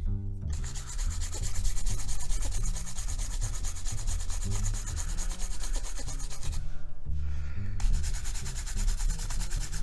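Quick, continuous rubbing strokes on a film camera's body as grime is scrubbed off with cleaning fluid, pausing briefly about seven seconds in before resuming.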